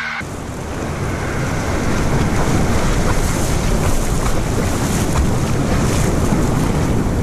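Shallow surf washing and sloshing over sand close to the microphone, with wind buffeting the mic, steady throughout.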